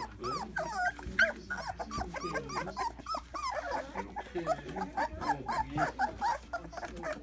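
A litter of young puppies whining and whimpering together: many short, high cries that overlap without a break.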